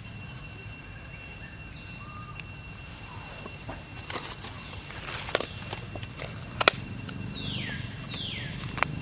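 Outdoor background with a steady high-pitched whine, several sharp clicks or taps about halfway through, and two short calls falling in pitch near the end.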